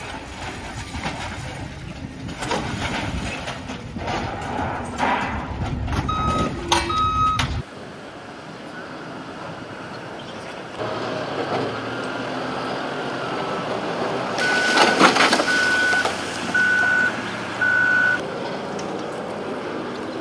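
A heavy vehicle's reversing alarm beeping in a steady repeated pattern over engine noise. It is loudest in the second half, after a rumbling, gusty stretch that holds only a couple of short beeps.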